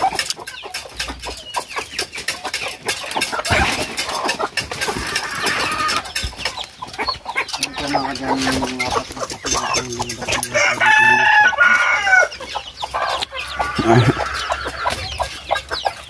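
Chickens clucking, with a rooster crowing once about eleven seconds in.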